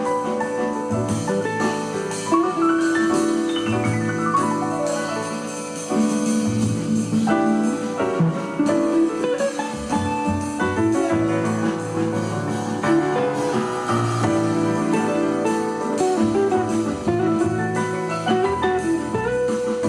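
Instrumental background music, with quick runs of notes.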